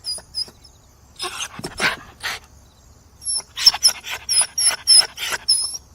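A dog panting in quick breathy bursts, with very short high-pitched whimpering squeaks between them. There is a pause about a second in, and a faster run in the second half.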